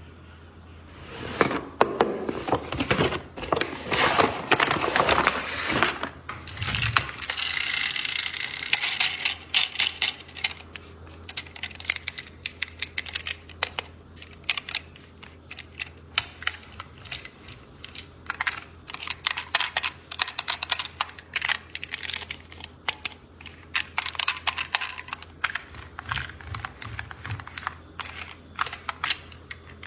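Rapid, irregular plastic clicking from a pink fidget decompression toy being pressed over and over, with a louder stretch of rustling and clicking in the first ten seconds or so.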